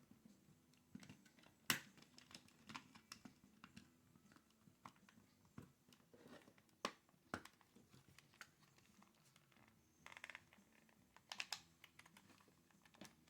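Faint, scattered plastic clicks and taps from a PS4 controller's shell and parts being handled and pressed back together, the sharpest click about two seconds in.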